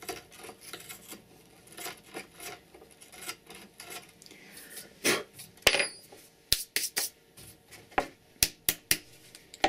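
A drill bit twisted by hand in freshly drilled screw holes in a cross-country ski, scraping the burrs off the plastic top. From about halfway through come a series of sharp clicks and knocks as the ski is handled.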